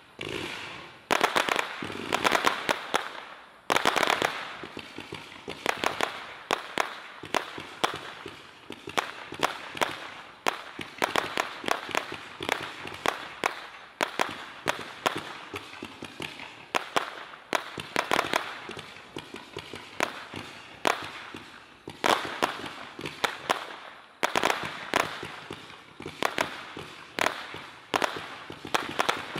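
Brothers Sky Wide 204-shot 500 g fireworks cake firing: a rapid, continuous volley of tube shots going off several a second, with the loudest reports about a second in and again near four seconds in.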